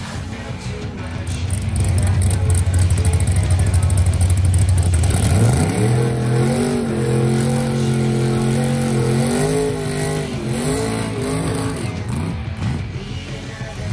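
A deep, loud drag-car engine rumble, then, from about six seconds in, a black Chevrolet El Camino drag car's engine held at high, steady revs while it sits in the wet water box, dropping and rising again a few times before easing off near the end.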